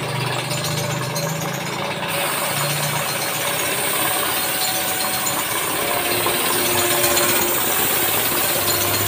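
Piston air compressor running steadily, a continuous rattling mechanical noise. A higher hiss joins about two seconds in.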